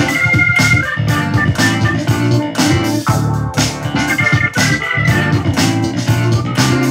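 Music played through a Logitech UE MEGABOOM Bluetooth speaker and picked up by a microphone: a keyboard-led track with a steady beat.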